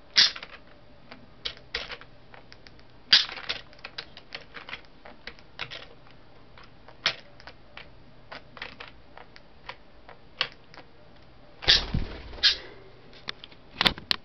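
Computer keyboard keys clicking irregularly as a parakeet steps and pecks on them, with a louder knock near the end.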